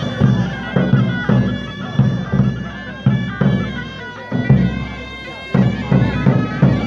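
Loud traditional folk music: a reedy wind instrument plays a continuous melody over a drum beating a steady rhythm.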